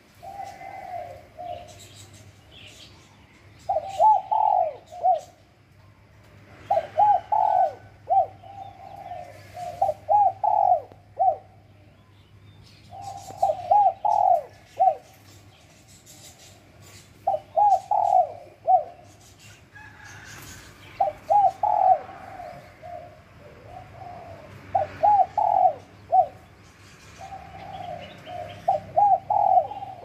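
Spotted dove cooing: about nine phrases of several quick coos each, coming every three to four seconds.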